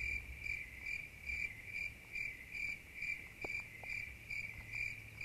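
Cricket chirping, a faint, even pulse of about two to three chirps a second.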